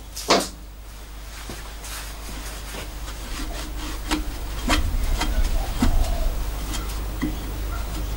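Cloth rag rubbing over a small threaded metal workpiece held in a lathe chuck, with scattered light clicks and taps of fingers on the metal. A short louder rustle comes right at the start, and a low steady hum sits underneath, growing a little louder about halfway through.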